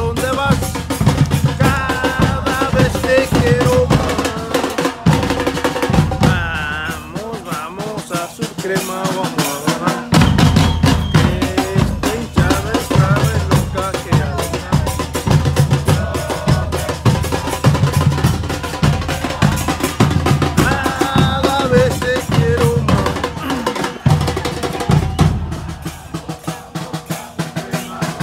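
Fan-group drum band playing a steady beat on large bass drums and snare drums, with a pitched melody line carried over the top. The bass drums drop out about seven seconds in and come back in about three seconds later.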